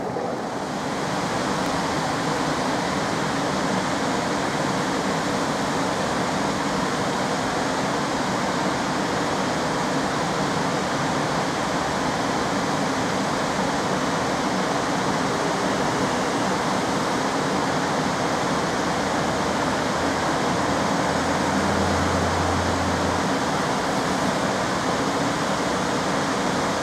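EP09 electric locomotive standing at the platform with its cooling blowers running, a steady even rush with faint steady tones in it. A low hum swells for about two seconds near the end.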